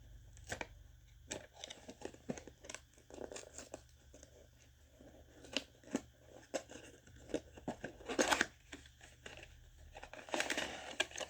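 Smoke alarm packaging being handled and opened: scattered clicks and crinkling of cardboard and plastic, with louder rustling about eight seconds in and again near the end.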